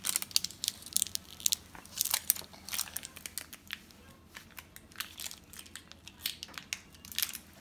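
Irregular crinkling and small clicks as plastic packaging and small toy parts are handled.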